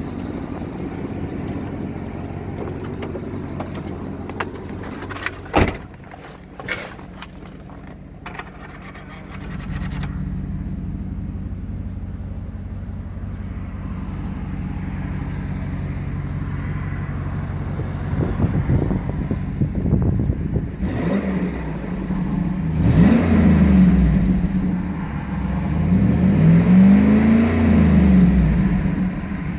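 2008 GMC Sierra Denali's 6.2L L92 V8 idling through an exhaust with a leak just ahead of the secondary catalytic converter, resonator deleted and axle-dumped. A few sharp knocks come about six seconds in. The engine sound grows louder from about a third of the way through, and it is revved several times in the last third, rising and falling each time.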